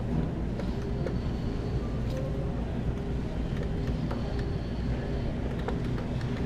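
Steady low background hum of an arcade, with a few faint clicks scattered through it.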